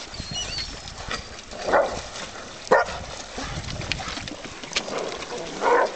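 Poodle barking three times, a second or more between barks.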